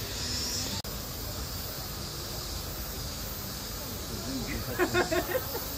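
Steady outdoor background hiss, broken by a brief dropout just under a second in, with people talking briefly near the end.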